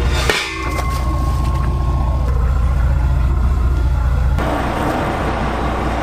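Fishing boat's engine running with a steady low hum as the anchor is let go over the bow, with a short knock just after the start. About four seconds in the hum drops away and a steady rushing hiss takes over.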